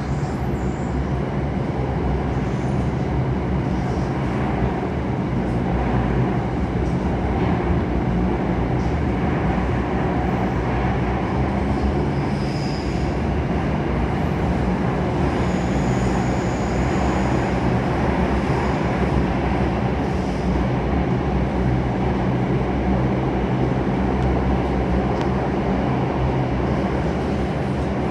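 Cabin of an Alstom Metropolis C830C metro train running between stations: a steady rumble of wheels on rail with motor hum. A faint high-pitched wheel squeal comes in briefly twice around the middle.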